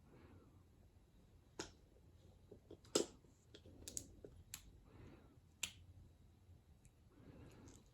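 Scattered sharp taps and clicks, about six, irregularly spaced, the loudest about three seconds in, with a few soft rustles between them.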